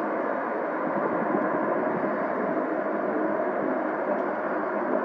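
Twin jet engines of a Boeing 767-200 running at taxi idle as the airliner rolls slowly along the taxiway: a steady, even jet noise.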